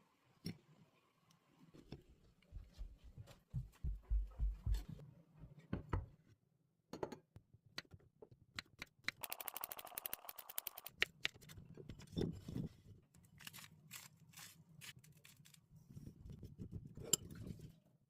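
Food being prepared for a salad: a knife cutting and knocking on a cutting board, with irregular clicks and scrapes and a quick run of rapid chopping about halfway through.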